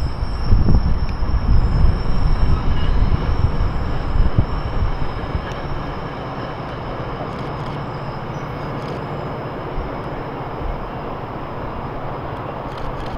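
GO Transit bilevel passenger coaches rolling past on the track, their wheels rumbling on the rails. The sound is loudest with uneven low thumps for the first few seconds, then settles about halfway through into a steadier, quieter rumble as the cab car at the tail end approaches.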